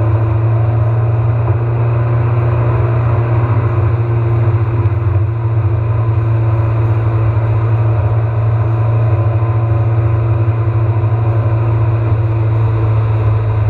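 Steady road and engine noise inside a car's cabin at freeway speed: a constant low drone with even noise above it.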